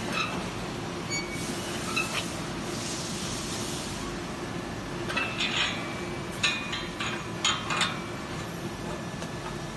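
Several sharp metallic clinks and taps with a short ring, mostly between about five and eight seconds in, over a steady background hum.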